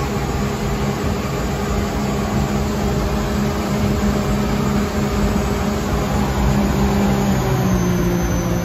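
Jet boat's engine running hard and steady at speed during a drag race, with water and wind rushing past. The engine pitch shifts slightly near the end.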